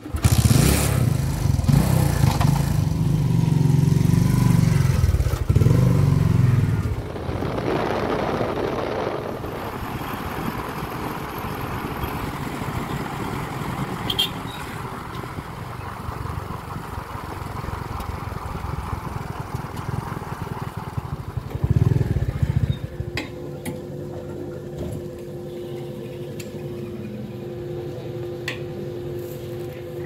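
Bajaj V15 motorcycle's single-cylinder engine kick-started, catching at once and running loudly for about seven seconds. It then runs on at a lower, steady level while the bike is ridden, with a short louder spell a little past two-thirds of the way through.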